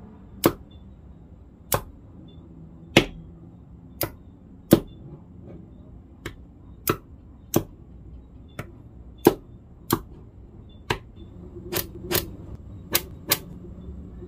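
Small neodymium magnetic balls snapping into place one at a time with sharp clicks, about one a second at an irregular pace, as a model is built piece by piece.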